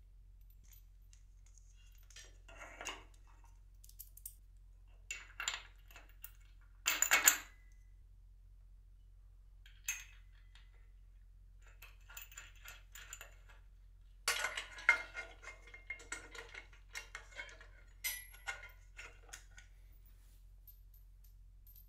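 Metal clinking and rattling of pulley-tower hardware being handled: pulley wheels, steel brackets and cable knocking together in scattered bursts. The sharpest clatter comes about seven seconds in, and a longer run of rattling follows from about fourteen seconds.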